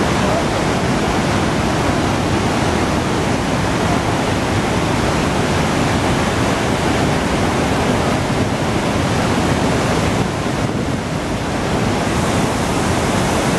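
Steady roar of the Iguazú Falls' cascading water, a loud, even rush with a slight dip about eleven seconds in.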